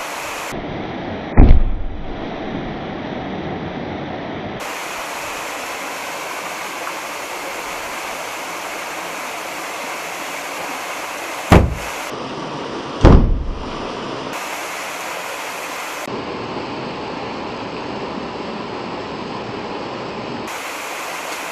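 Ball firecrackers going off in a rock pool to stun fish: three loud booms, one about a second and a half in and two close together around eleven and thirteen seconds in. A small waterfall rushes steadily throughout.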